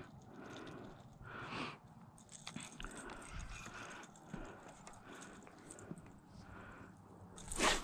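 Footsteps crunching on a sandy, pebbly lakeshore, mixed with scattered small handling clicks, with a louder scuff near the end.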